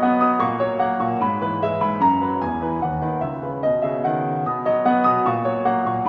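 Background piano music: a continuous run of notes with sustained tones beneath.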